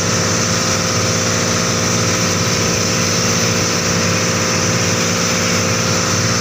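Outrigger boat's engine running steadily under way, with a constant hiss of water and spray rushing past the hull.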